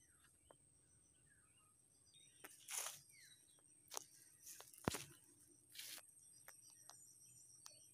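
Footsteps and rustling through dry banana leaves and grass, with a few crackles about three, four and five seconds in. Faint small-bird chirps and a steady high whine sit behind them.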